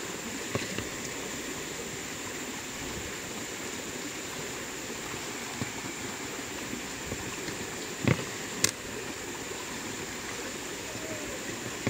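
Steady rushing of a flowing stream, with a thin steady high whine over it and a few sharp knocks and clicks, two of them close together about eight seconds in.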